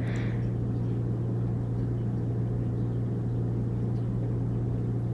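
Steady low hum of a shop's room tone, with nothing else standing out.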